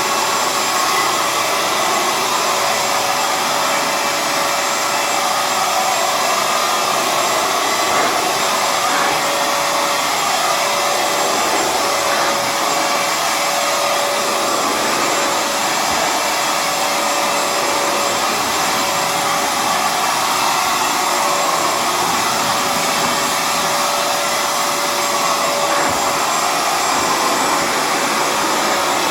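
Hoover FloorMate Edge hard floor cleaner running in dry mode, its suction motor pulling water up off a wood floor. It makes a steady whir with a constant whine.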